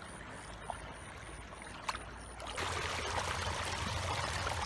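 Running water trickling, with a couple of faint clicks; a louder, steady rush of water comes in abruptly about two and a half seconds in.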